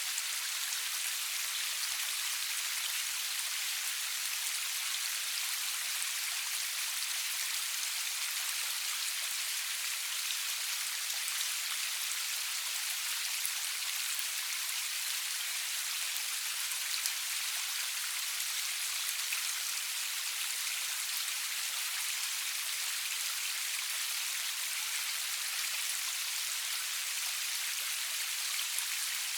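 Steady rain falling, an even hiss of many drops with faint individual drop ticks, no thunder.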